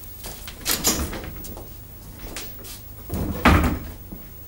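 A door being opened and shut: a few latch clicks and knocks about a second in, then a heavy thud as the door closes, about three and a half seconds in.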